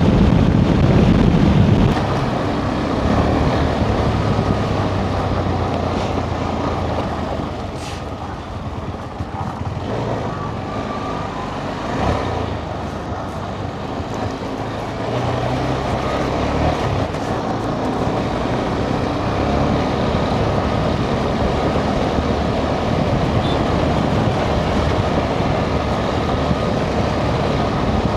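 Motorcycle riding at road speed: a steady engine hum under wind and road noise, easing off a little around the middle.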